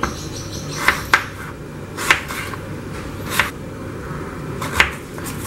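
Kitchen knife slicing through firm raw green mango and striking the cutting board: about six sharp, irregular taps, one with each cut.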